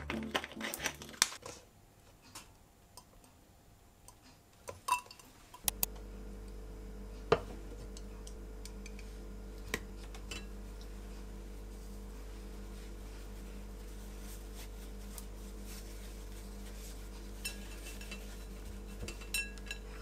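Scattered clinks and light knocks of a ceramic plate and dishes being set down and handled. About six seconds in, a steady low hum starts and runs on beneath the occasional knocks.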